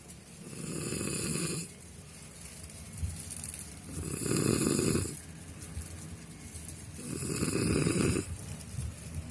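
A man snoring in his sleep: three snores about three seconds apart, each lasting a second or so.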